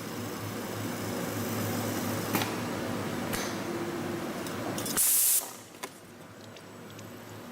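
CNC flat-wire spring coiling machine running, with a steady hum and a few sharp clicks as it forms flat-wire piston springs. About five seconds in comes a short, loud burst of hiss, and after it the machine noise drops away.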